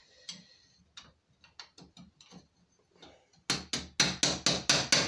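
Small hammer tapping the steel spring into place in a hand-forged Viking-style lock held in a vise, metal on iron. A few light taps, then near the end a quick run of about seven sharp strikes, roughly four a second.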